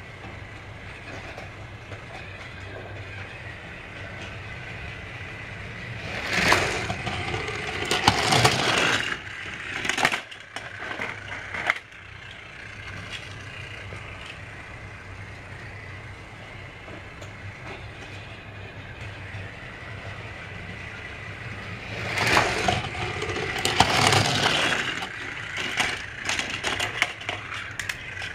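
Battery-powered Trackmaster toy train motor humming steadily on plastic track. Two spells of loud clattering and crackling break in, one about six seconds in and another around twenty-two seconds in, each lasting several seconds.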